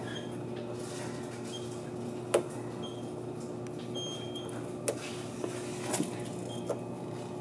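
Fingernail picking at the edge of a thick clear protective film on a car's rear quarter panel: a few faint clicks, with several short high squeaks, over a steady low hum.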